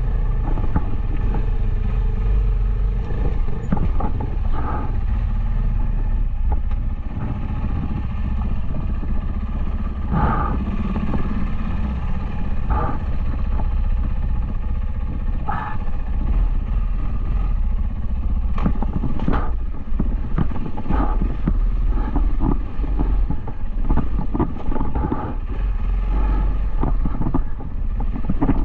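Dual-sport motorcycle engine running steadily under way, with many short knocks and clatter scattered throughout.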